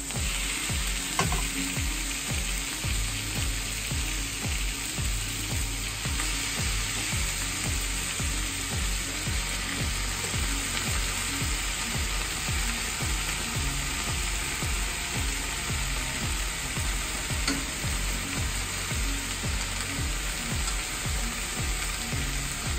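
Cooked spaghetti, sliced onions and mushrooms sizzling in olive oil in a frying pan as they are tossed with tongs, over background music with a steady low beat.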